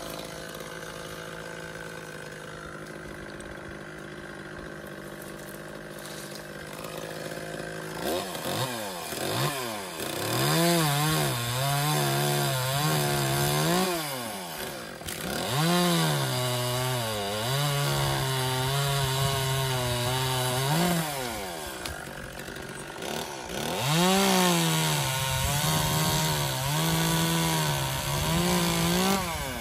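Chainsaw idling, then three loud cuts: in each the engine revs up and its pitch drops and holds lower while the chain is loaded in the wood, then rises again as the cut ends.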